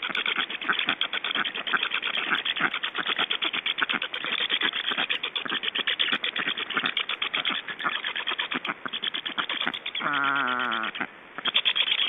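Black stork nestlings calling in a rapid, rattling series of rasping notes, the chicks' begging calls. About ten seconds in, a drawn-out call of about a second sounds over them, falling slightly in pitch.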